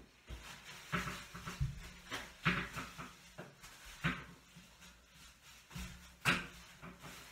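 Household handling noises: a string of irregular knocks and clatters, the loudest about two and a half, four and six seconds in, as someone off camera fetches a plastic cap.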